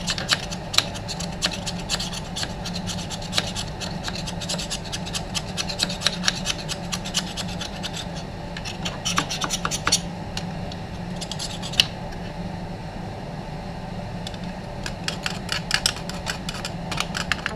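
Hand work on metal engine parts during water pump assembly: irregular scraping, rubbing and sharp clicks of tools and parts, over a steady low hum.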